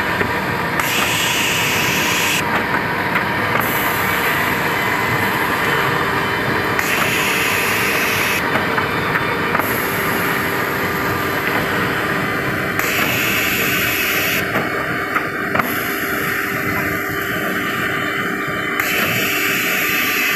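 Belt-fed multi-row woodworking boring machine (JESH Z6XL) running as it feeds and bores a panel. Its steady machine noise carries a hiss that changes every second or two as its cycles repeat, with scattered clicks.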